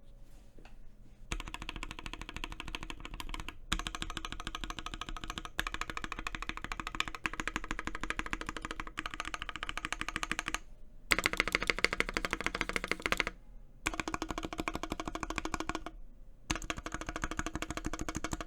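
Fast typing on an unmodded Velocifire S58 60% keyboard with linear Mauve switches: dense key clacks in several runs broken by short pauses. The typing has a hollow sound, caused by the empty space beneath the PCB in the case.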